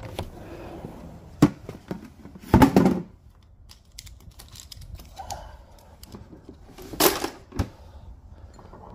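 Scattered clicks and knocks of household objects being handled, with two louder short scraping thuds, one about two and a half seconds in and one about seven seconds in.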